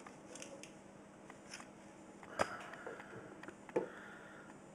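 Handheld plastic clamp meters being handled and set down on a carpet: a few light clicks and knocks, with two sharper knocks in the second half.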